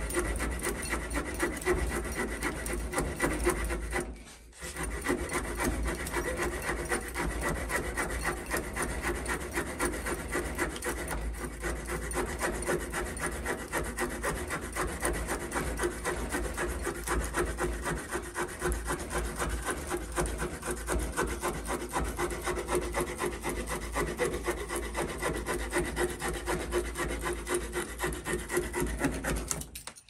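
Small pocketknife saw blade sawing back and forth through a bark-covered wooden branch clamped in a vise, a steady rasping cut. It breaks off briefly about four seconds in and stops at the end.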